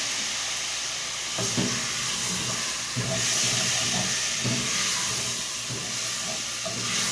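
Chicken and diced vegetables sizzling and hissing in a hot pan after a splash of water is added to keep them from sticking. There are a few soft low knocks, about every second, from the middle on.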